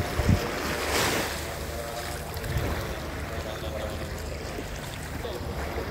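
Sea surf washing at the shore, with a wave surging about a second in; a low thump just at the start.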